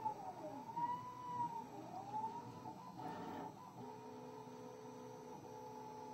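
Stepper motors of a 6040 CNC router driving its axes through a test program, cutting air: their whine sweeps up and down in pitch as the axes trace circular arcs, then settles into steady tones about four seconds in when the machine switches to straight-line moves.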